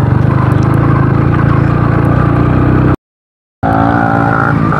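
Motorcycle engine running steadily under way on a rough dirt track. About three seconds in the sound cuts out completely for about half a second, then comes back at a slightly different pitch.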